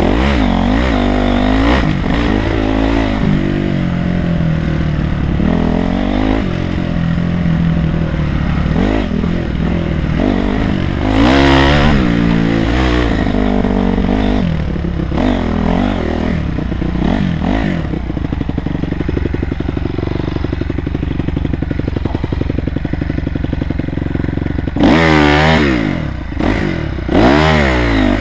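Honda CRF250R's single-cylinder four-stroke engine revving up and down as the throttle is worked on a rough trail, with sharp bursts of high revs about halfway through and twice near the end. Some clatter from the bike rides along over the bumps.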